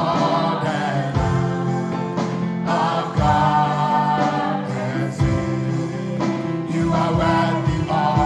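Live gospel worship music: sung vocal lines, likely a group of singers, over sustained keyboard and band accompaniment.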